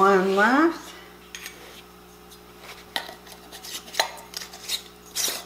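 Filled glass pint canning jars with metal lids and screw bands being picked up and handled, giving a few sharp separate clinks and knocks, the loudest near the end.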